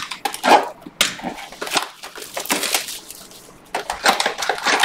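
Panini Prizm basketball retail box and its card packs being torn open and handled: a run of sharp, irregular crackles and tears of cardboard and foil wrapper, busiest in the last second.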